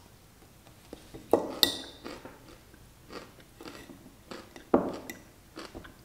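A person biting into and chewing a pickle spear, heard as a series of short sharp bites and chews. A metal fork clinks against the glass pickle jar a couple of times with a brief ring.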